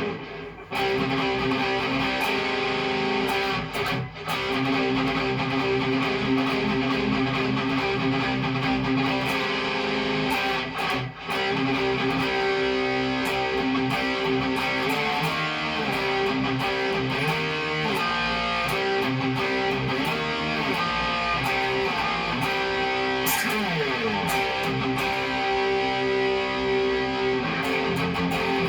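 A Cort Viva guitar being played: held, ringing chords with short breaks near the start, about four seconds in and about eleven seconds in, then changing notes with a sliding pitch near the end.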